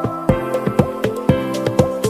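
Background music with a steady beat and sustained synth notes.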